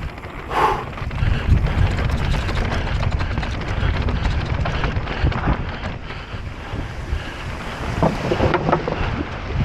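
Wind buffeting the camera microphone of an electric mountain bike descending fast, over a steady low rumble of tyres on rough trail and constant rattling and clicking from the bike.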